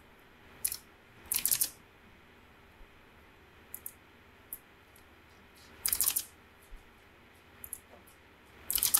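Computer keyboard keystrokes and mouse clicks in short clusters of sharp clicks, about seven times, over a faint steady hiss.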